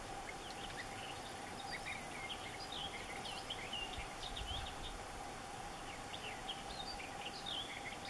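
European bee-eaters calling from a treetop: many short chirping calls from several birds, over a steady background hum.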